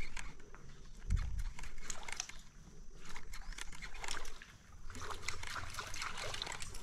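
Water trickling and sloshing with scattered small clicks and knocks, and a dull thump about a second in.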